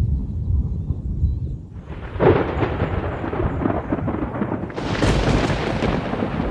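Thunderstorm breaking: low rolling thunder, with a louder clap and roll about two seconds in, and a wider hiss of rain joining about five seconds in.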